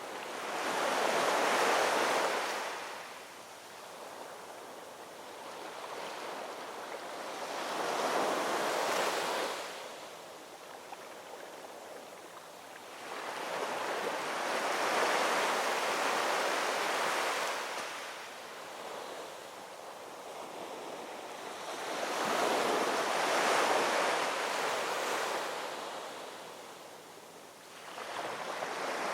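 Ocean waves breaking and washing ashore in slow surges, each swelling up and ebbing away over several seconds, about every seven seconds.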